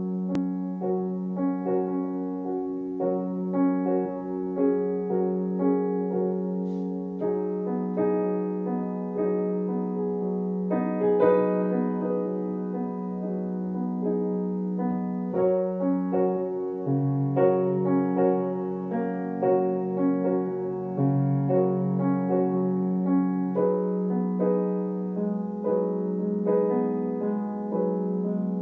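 Grand piano played with both hands as a backing-track accompaniment: steady chords over a long-held bass note, with a lower bass line joining about two-thirds of the way through.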